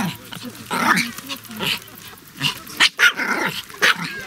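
Pomeranian spitz dogs barking and growling in play: a quick run of short, sharp barks.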